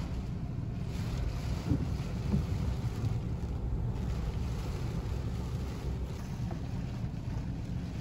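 Heavy rain with wind buffeting the microphone: a deep, steady rush.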